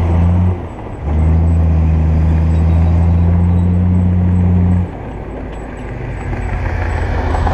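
Small Komatsu crawler bulldozer's diesel engine running under load with a steady low drone as the blade pushes dirt and rock. The drone drops off about five seconds in, then a rougher sound builds near the end.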